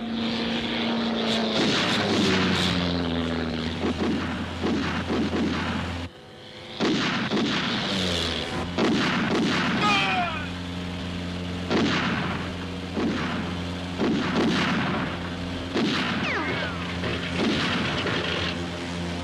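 Film sound effects of a run of heavy explosions, roughly one a second, each with a ringing tail, over a steady low drone of a propeller-plane engine. The sound briefly drops out about six seconds in, and a falling whistle is heard about ten seconds in.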